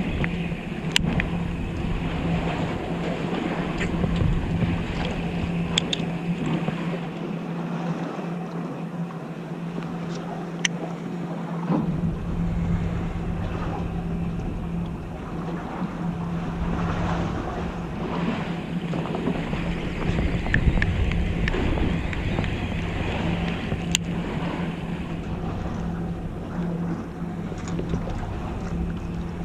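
Fishing boat's engine idling with a steady low hum, and wind rumbling on the microphone that drops off for a few seconds in the middle. There are a few sharp clicks from handling the reel and tackle.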